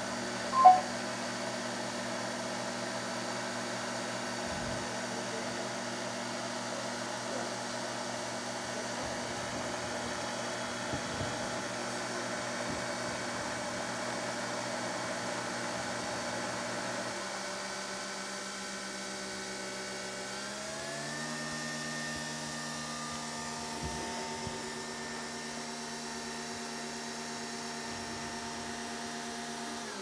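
Nespresso Vertuo Plus brewing: a steady mechanical hum from the machine as it spins the capsule and pumps water, while coffee runs into a mug. The hum drops in pitch about 17 seconds in, then climbs to a new steady pitch around 20 seconds. A single sharp click comes just under a second in.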